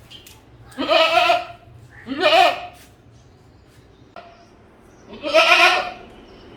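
A goat bleating three times, each call a wavering, quavering cry of under a second, the third a little longer.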